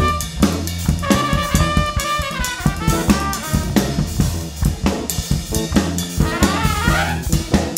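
Live funk band playing: a trumpet plays a lead line with quick upward runs over drum kit and bass.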